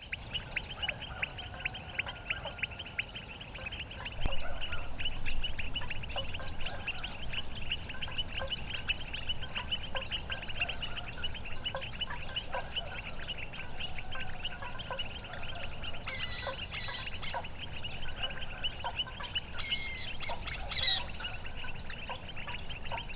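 Dense chorus of rapidly repeated short calls from the lagoon's wildlife, louder from about four seconds in, with a few sharper, higher sliding calls near the end. A low rumble of wind runs beneath.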